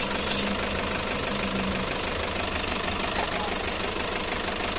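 Toyota Hiace engine idling steadily.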